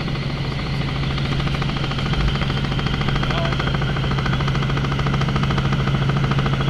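Helicopter running in flight: a steady low hum under a fast, even chopping of the rotor blades.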